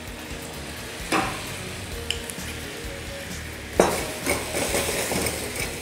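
Maraschino liqueur poured into a hot pan of pineapple cubes cooking in butter and cane sugar, sizzling. A knock about a second in and a sharper metal clank near four seconds as the pan is taken up on the burner grate, after which the sizzling grows louder.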